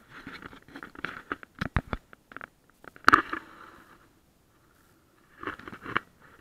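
Handling noise: irregular knocks, clicks and rustling, with one sharp knock about three seconds in and a short cluster of knocks near the end.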